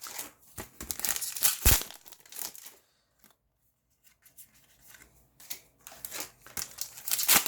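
A foil trading-card booster pack being torn open and its wrapper crinkled, in two bouts of crackly rustling with a short pause between them.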